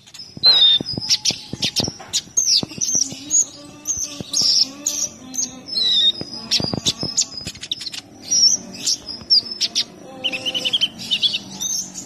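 Male Van Hasselt's sunbird (kolibri ninja) singing a rapid, varied string of high, sharp chirps, quick sweeping notes and clicks, breaking into a faster trill about ten seconds in.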